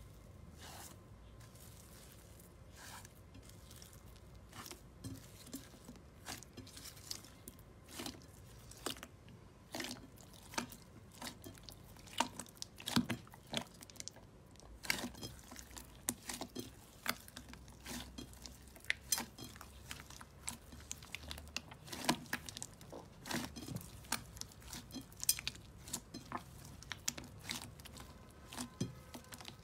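Hands squeezing and kneading blue clear slime mixed with foam beads, giving irregular crunchy crackles and pops. The crackles are sparse at first and come thicker after the first few seconds.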